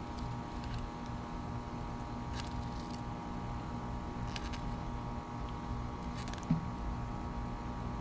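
Fillet knife rasping in short scratchy strokes, about every two seconds, as it cuts along the backbone of a spotted sea trout, over a steady machine hum. A brief low thump about six and a half seconds in.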